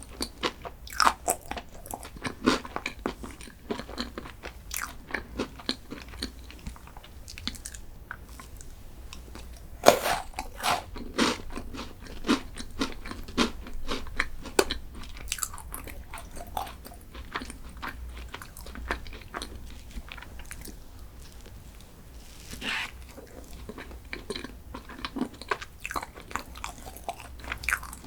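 Close-miked eating of crunchy chocolate desserts: repeated crisp bites and crunches with chewing in between. The loudest bites come about ten seconds in and again a few seconds before the end.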